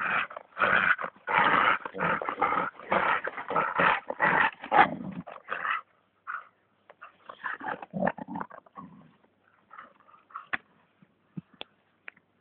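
Dog growling in play as it tugs and chews at a large stick, in a loud run of bursts for about six seconds, then quieter and more scattered, with a few sharp clicks near the end.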